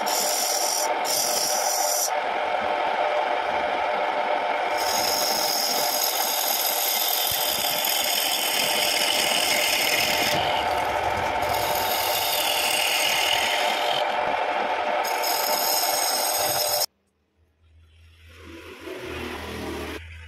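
Wood lathe running while a hand-held turning chisel cuts the end face of a spinning wooden blank: a steady scraping hiss of steel on wood over the machine's noise, its upper pitch shifting every few seconds as the cut changes. It stops abruptly about three seconds before the end, leaving only a faint sound that swells and fades.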